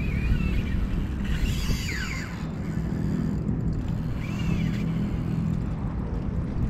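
Wind buffeting the microphone as a steady low rumble, with a few faint, short high chirps near the start, about a second and a half in, and again about four and a half seconds in.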